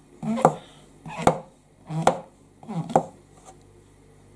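Kitchen knife slicing button mushrooms on a plastic chopping board. Four slow, even strokes, each ending in a sharp knock of the blade on the board, a little under a second apart.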